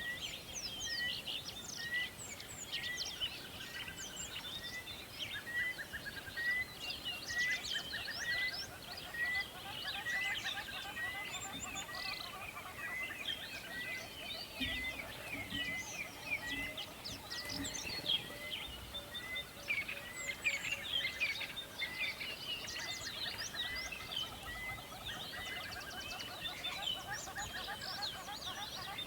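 Several wild birds chirping and singing at once, many short high chirps and quick sweeps overlapping, while one bird repeats the same short note about once a second until near the end. A faint steady rush of river water runs underneath.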